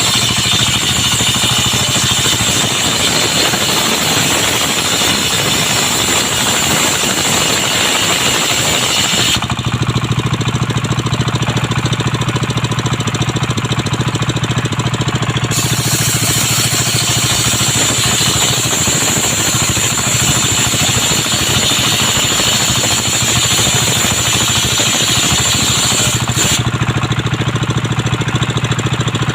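A motor-driven circular sawmill (serkel) is running steadily while sawing young coconut wood. The harsh, high noise of the blade cutting through the wood lasts for about the first nine seconds. After that only the machine's steady hum remains, until cutting resumes from about fifteen to twenty-six seconds, and then it falls back to the hum.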